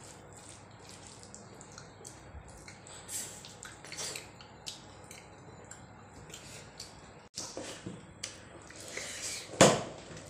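Wet eating sounds of rice and curry being squeezed and mixed by hand on a plate and chewed: a run of short squelching smacks and clicks, with one louder smack near the end.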